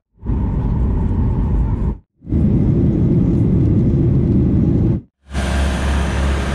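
Airliner noise in three short clips, each cut off by a brief silence: a low rumble by night near a taxiing jet, then the steady rumble of the jet engines heard in the cabin over the wing in flight, then a steady low hum with hiss beside a parked airliner on the apron.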